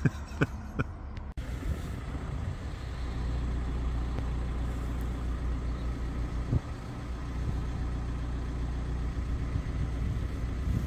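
VW Crafter van's diesel engine idling steadily, after a few sharp clicks in the first second or so.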